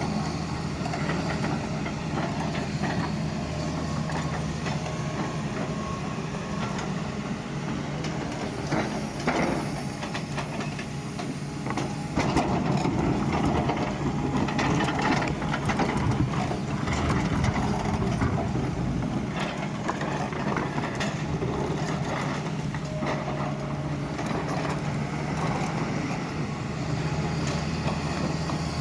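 Doosan excavator's diesel engine running steadily while digging, with scattered clanks and knocks that grow busier and louder from about twelve seconds in.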